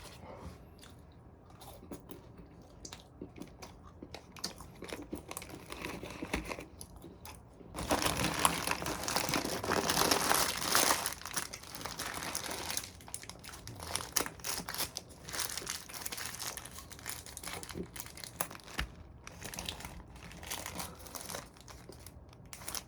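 Paper food wrapper being crinkled and handled, loudest for several seconds starting about eight seconds in, with small rustles and clicks before and after.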